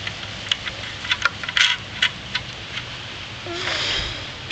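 Light metallic clicks and taps of generator parts and hardware being handled and fitted together, several in quick succession, followed by a short rustling scrape near the end.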